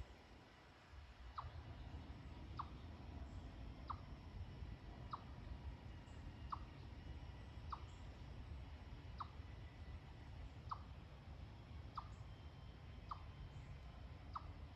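Unidentified bird call, the uploader's 'strange bird sound': a short, sharp note repeated about eleven times, roughly one every second and a quarter, over a low steady background hum.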